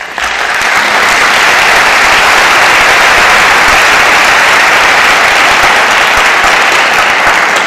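Audience applauding in a hall: dense, steady clapping that starts right after the speaker's thanks and tapers off near the end.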